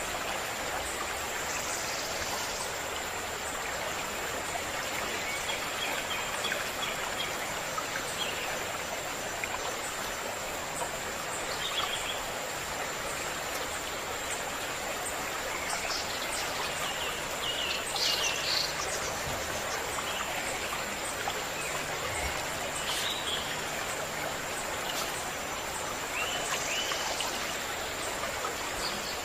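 A stream running steadily, with short bird chirps now and then, most of them a little past the middle and near the end. A thin steady high tone sits under the water.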